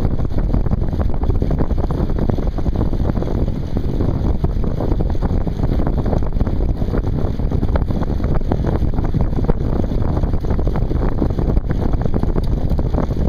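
Wind buffeting the microphone while riding a bicycle, a steady low rumble.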